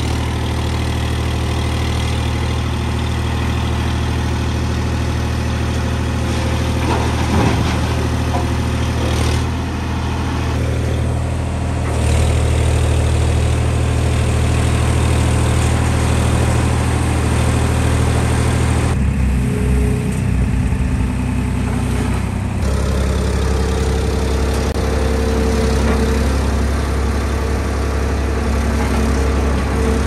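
Swaraj 963 FE tractor's diesel engine running steadily while it powers a backhoe attachment digging soil and dumping it into a trolley; the engine note shifts abruptly a few times.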